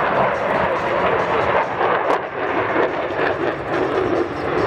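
F-16 fighter's jet engine roaring as the jet banks through a tight display turn: a loud, rough rush of jet noise with a few sharp cracks in it.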